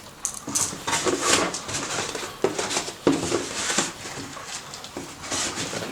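Packing material around a boxed sewing machine being pulled open and handled: irregular rustling and crinkling with a few sharper knocks.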